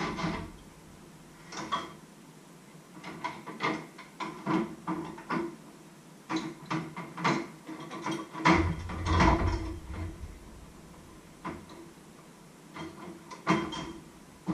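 Washing up by hand in a stainless steel sink: metal pots, pans and cutlery clattering and clinking in irregular bursts, with a heavier, deeper clatter a little past the middle.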